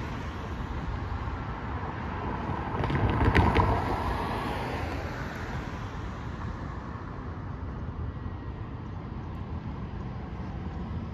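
Street traffic: a car passes about three seconds in, the loudest moment, with a few sharp clicks as it goes by, over a steady low rumble.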